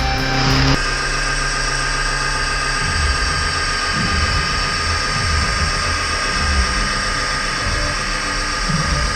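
Wood lathe running steadily: a continuous motor hum with a steady whine.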